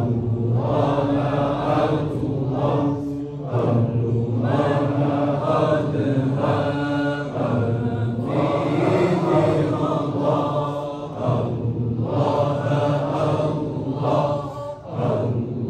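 A Shadhili Sufi hadrah: many men's voices chanting dhikr together in a rhythmic, repeated group chant. The chant comes in phrases that break off briefly about every four seconds.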